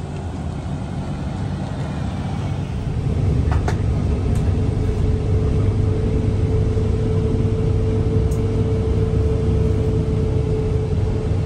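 Diesel city bus running: a low engine rumble that grows louder about three seconds in and is heard from inside the cabin as the bus drives along, with a steady whine joining about five seconds in.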